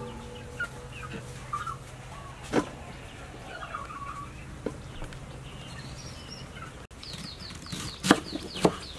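Chickens clucking in the background, with a couple of light knocks early on. Near the end come two sharp knife chops through bok choy onto a wooden chopping board, along with a run of rapid, high, falling bird chirps.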